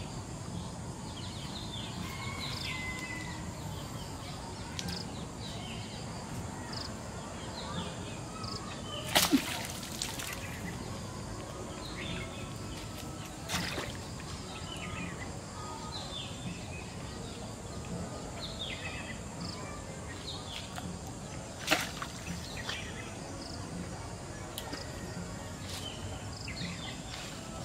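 Birds chirping in short falling calls over a steady outdoor background, with two sharp cracks standing out, one about a third of the way in and one about four-fifths through.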